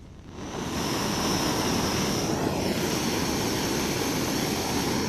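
Backpacking stove burner coming on about half a second in, then burning with a steady loud rush and a thin high whistle, heating a pot of water.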